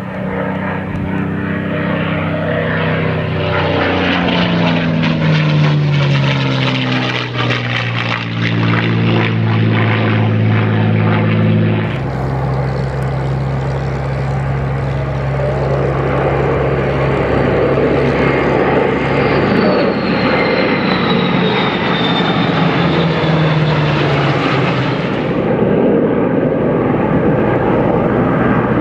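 Piston-engined propeller warbird flying past, its engine note dropping steadily in pitch as it passes. After an abrupt change about twelve seconds in, a formation of propeller aircraft and jets flies over as a steady drone with rushing noise, and a faint high whine slowly falls in pitch.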